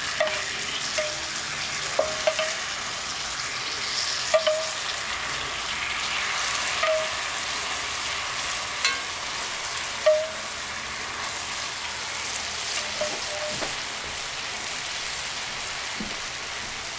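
Steak, rice and sauce sizzling on a hot cast-iron plate: a steady frying hiss with short chirping pops every second or few, one louder pop about ten seconds in.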